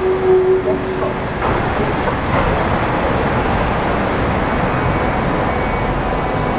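Harz narrow-gauge steam train: a whistle note ends within the first second, then a steady, loud rushing noise takes over.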